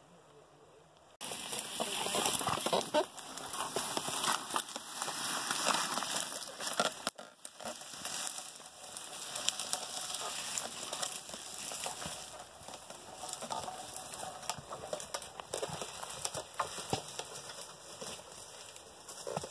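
Dry brush and dead leaves crackling and rustling as a pack mule carrying long wooden boards pushes past through the overgrowth. The dense crackle starts suddenly about a second in.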